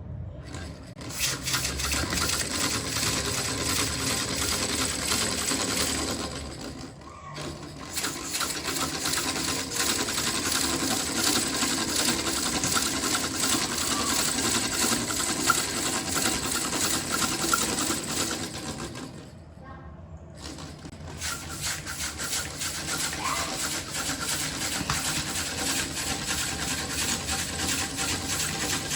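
Small 3D-printed PLA single-acting air engine running on air from a hand-operated balloon pump: a fast, steady clatter of rapid ticks. It drops off briefly twice, about a quarter of the way in and again about two-thirds in.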